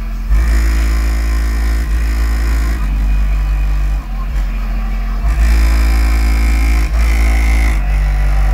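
A car audio system playing loud, bass-heavy music: a very deep bass line under held notes that change every second or two.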